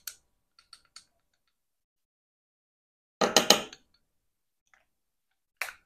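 Measuring spoon clinking against a spice jar while cayenne pepper is measured out: a few faint ticks, then a quick run of sharp clinks about three seconds in, and one more clink near the end.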